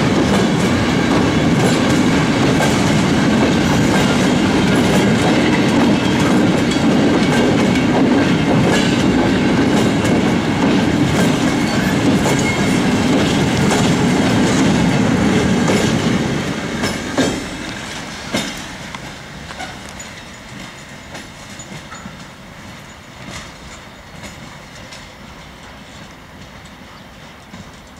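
Freight train's container flat wagons rolling past, wheels clacking over the rail joints. About sixteen seconds in the last wagon passes and the noise fades as the train moves away, leaving scattered clacks.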